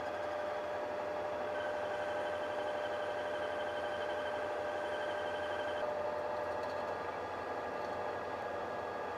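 Metal lathe running, its chuck spinning an axle while the cutting tool works the axle's end to shorten it. A steady whine sets in about a second and a half in and stops about six seconds in, over the even running noise of the machine.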